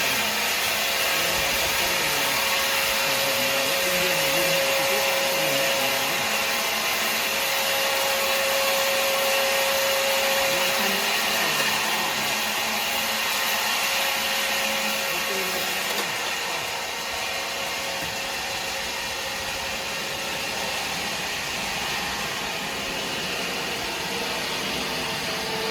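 Steady machine noise of a running motor with a held hum; about two-thirds of the way through the sound shifts and loses some of its high hiss.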